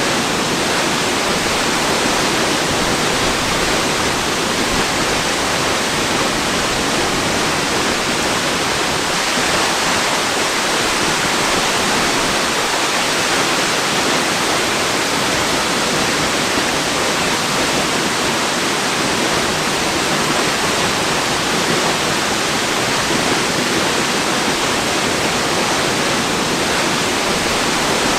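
Waterfall: steady rushing of falling water, an even hiss with no change.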